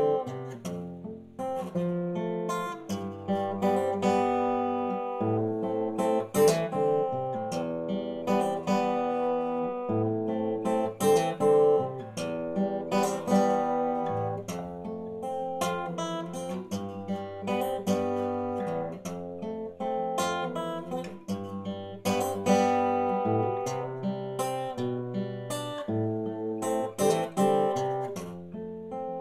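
Acoustic guitar played with the fingers, chords strummed and picked in a steady rhythm, with the chord changing every second or two.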